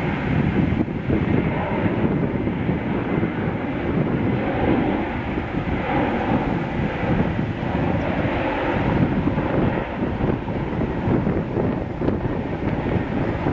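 Airbus A330-300 twin jet engines at takeoff thrust as the airliner rolls, lifts off and climbs out: a loud, steady, rumbling noise.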